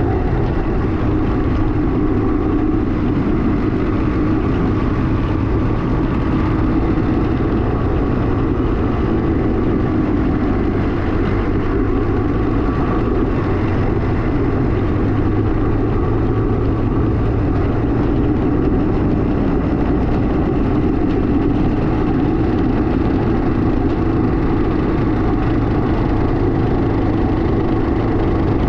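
Kawasaki KMX200's two-stroke single-cylinder engine running steadily, with no marked change in pitch.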